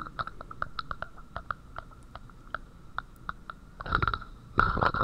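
Death rattle: rattling breath sounds from secretions pooled in the upper airways, with many quick, irregular crackles throughout and two louder breaths about four seconds in.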